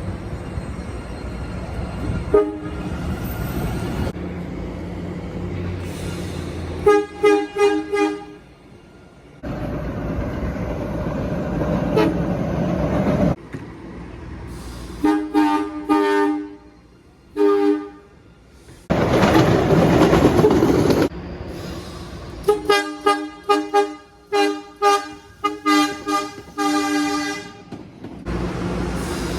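MBTA Blue Line 0700-series subway train's two-tone horn sounding in short toots: a quick burst about seven seconds in, a few more around fifteen to seventeen seconds, and a long run of rapid toots near the end. Between the toot groups there are stretches of steady rushing train noise.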